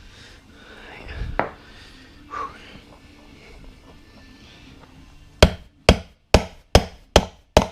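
A single knock, then from about five seconds in a steady run of hammer blows, six sharp strikes a little over two a second.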